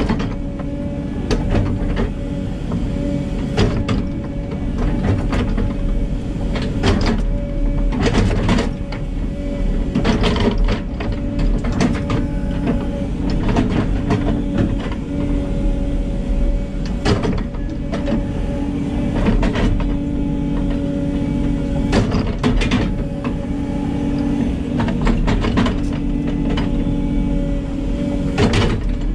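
Hidromek 140 hydraulic excavator heard from inside its cab: engine and hydraulics running steadily while the boom and bucket work soil, with frequent irregular clicks, knocks and rattles.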